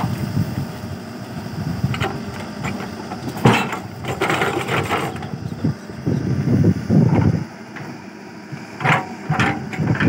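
Diesel engine of a backhoe loader running and revving up in swells as its hydraulic arm swings and digs. A sharp metallic clank comes about three and a half seconds in, with more clatter near the end.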